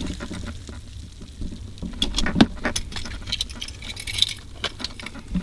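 Handling noise: scattered light clicks and knocks with a jangle like keys, over a low rumble.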